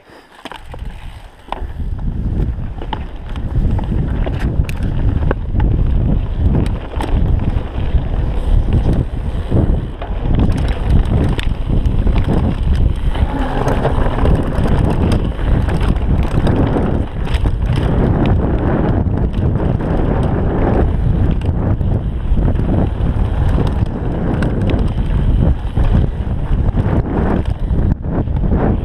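Wind buffeting an action camera's microphone as a mountain bike rides down a rough dirt trail, with the bike rattling and knocking over bumps throughout. It builds up about a second in as the bike gets moving.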